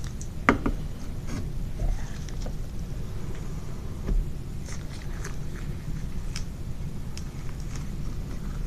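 A blade cutting down through a loaf of lard-based soap studded with coffee grounds and orange rind, in an acrylic cutting box: a quiet crunching and scraping with a knock about half a second in and scattered soft clicks.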